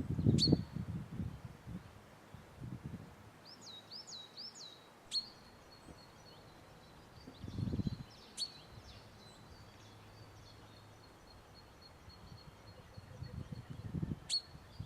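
Woodland birds singing and calling: thin high notes, a quick run of three rising notes, and four sharp chip-like calls spread through. A low rumbling noise is loudest at the start, briefly returns in the middle, and builds again near the end.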